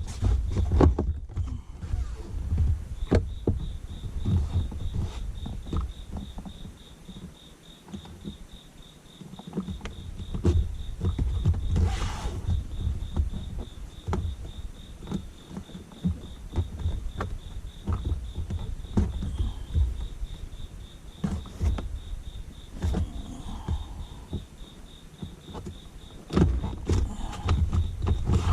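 Plastic interior trim panels being handled and fitted into a car's B-pillar, giving irregular knocks, taps and clicks over a low rumble. A fast, steady high-pitched beeping begins about three seconds in and keeps going.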